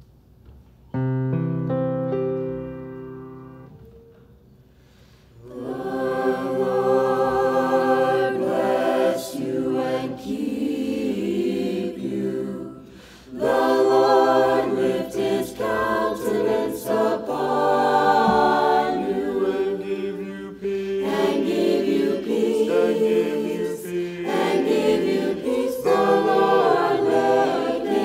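Mixed choir of men's and women's voices singing after a held chord about a second in sets the pitch. The choir comes in about five seconds in.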